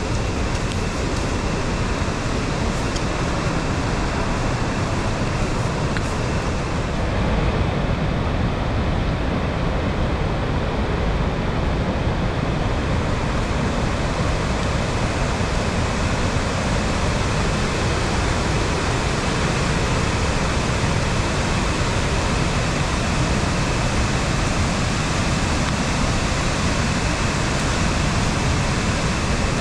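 Steady rushing of a fast mountain stream or river in a rocky gorge, an even, loud wash of water without a break.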